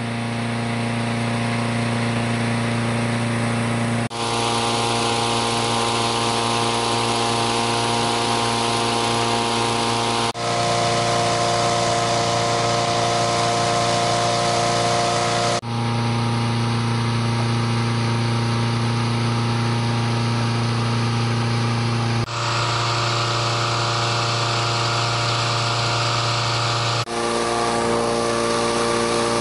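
Petrol-engine inflator fan running steadily, blowing cold air into a hot-air balloon envelope during cold inflation. The engine note shifts abruptly several times.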